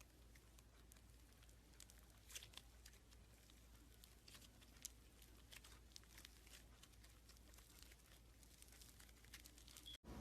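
Faint, irregular crackling and small clicking pops of slime being squeezed and pressed by hand, with a few louder pops here and there.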